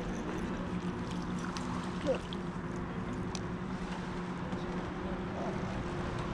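Steady engine hum, a motor running at an even speed with a low rumble underneath.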